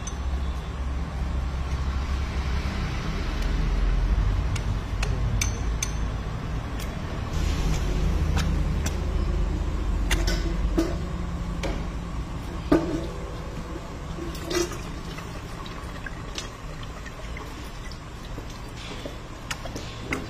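Low rumble of a stone oil mill (ghani) at work, heaviest in the first half and easing off, while oil trickles from a spout pipe into a steel pot. A few sharp knocks come in the second half.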